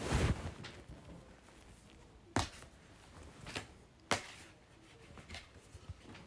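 Rustling handling noise, then two sharp clicks about two seconds apart, with a few fainter ticks in between and after.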